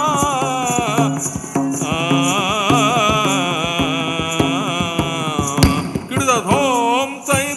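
Kannada song of a Togalu Gombe Aata shadow-puppet play: a singer holds long notes with wavering, ornamented pitch over a steady drone, with light percussion strokes and one sharp strike near the end.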